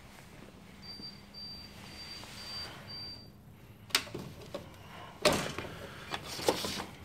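A wall power-point switch clicked off, then a mains plug pulled out of the socket and handled, giving a short clatter and a sharp knock or two. Before that, five short high beeps in an even row.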